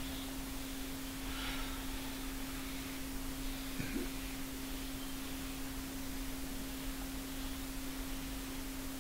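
A steady low hum, with faint rubbing strokes of a duster wiping a whiteboard clean.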